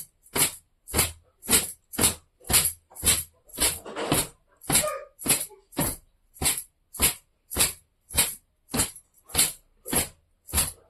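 Long hair being towel-dried: a run of rhythmic swishing strokes, about two a second, each a short sharp whoosh.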